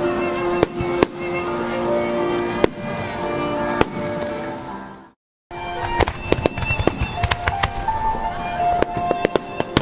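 Aerial fireworks shells bursting with music playing: a few sharp bangs over a steady tune at first. The sound cuts out briefly about five seconds in, then comes back as rapid, crackling volleys of bangs.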